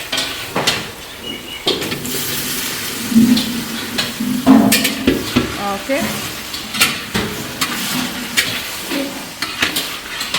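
Chopped onions and potatoes sizzling in hot oil in a large frying pan, with a spatula scraping and knocking against the pan again and again as they are stirred.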